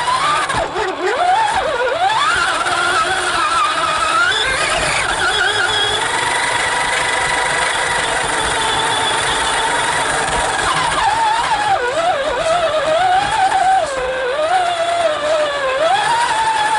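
Motor of a small radio-controlled model vehicle running, its pitch rising and falling with the throttle, holding steadier for a few seconds in the middle.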